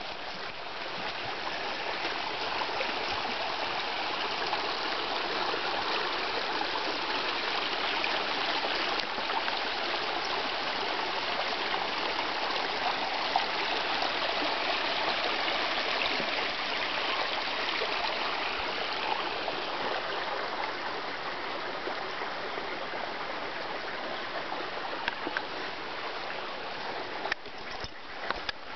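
Shallow mountain stream running over rocks and boulders: a steady rush of water, with a few light knocks near the end.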